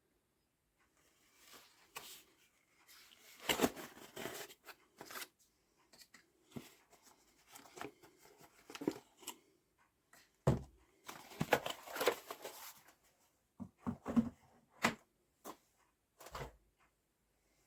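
Packaging handled and opened by hand: irregular bouts of paper and plastic rustling and tearing, with a few soft knocks.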